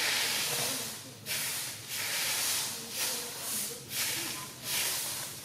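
Hissing, rushing noise that swells and fades in uneven surges, roughly one a second, over a faint low rumble.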